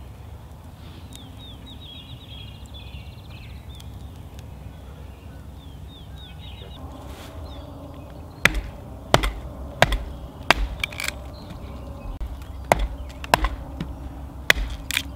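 Small Fiskars hatchet splitting kindling against a log: about ten sharp chops, irregularly spaced, over the last six or seven seconds. Before the chopping starts, a bird sings in short repeated trilled phrases.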